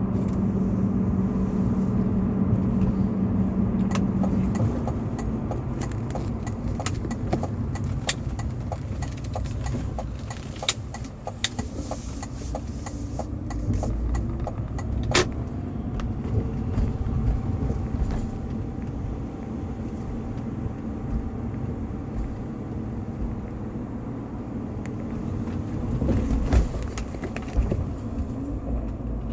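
BMW E46 320i's stock 2.0-litre M52TU inline-six engine running, its pitch shifting partway through. A regular ticking of about two a second comes in for several seconds near the middle.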